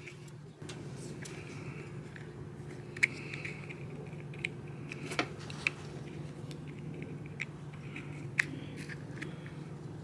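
Small sharp plastic clicks and snaps, about half a dozen, the loudest about three seconds in, as a plastic zip tie is cut and the plastic clutch start switch is unclipped from a clutch master cylinder's pushrod. A steady low hum sounds underneath.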